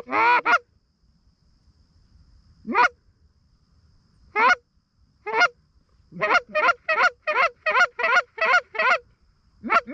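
Canada goose honks: a few short calls at the start, single honks spaced a second or two apart, then a quick run of about nine clucks at roughly three a second, and three more near the end. Each note drops in pitch.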